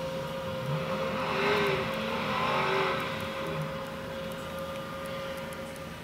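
SUV engine revving as it works its way out of deep snow, over a steady whine; it swells loudest about one and a half to three seconds in, then eases off as the truck pulls free.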